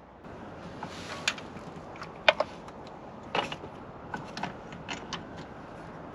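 Hand tools clinking and clanking against metal in an engine bay, a series of irregular sharp clicks with no engine running, as work on a misfiring cylinder's spark plug goes on.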